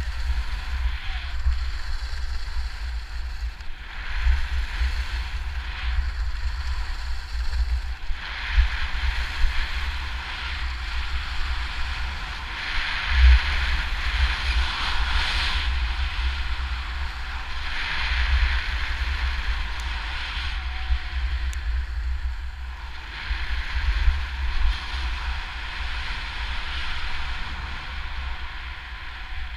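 Skis hissing and scraping over firm groomed snow, swelling with each turn every few seconds, with heavy wind buffeting the microphone.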